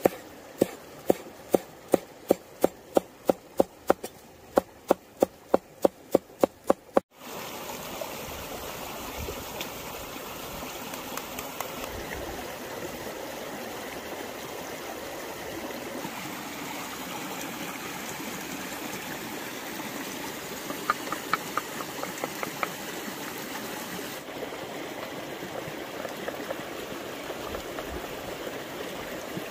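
Large curved Damascus-pattern knife chopping parsley on a wooden slab, about eighteen sharp strokes at roughly two or three a second that stop suddenly after about seven seconds. Then a stream runs steadily, with a brief run of light taps about two-thirds of the way in.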